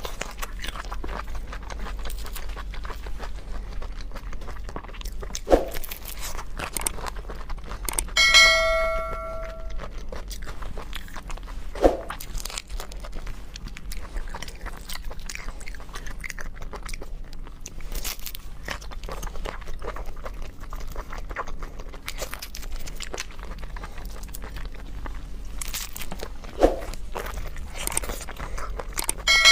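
Close-up crunching and chewing of food, crackling steadily throughout. About eight seconds in a ringing metallic clink sounds for a second or so, and a few short dull knocks fall in between.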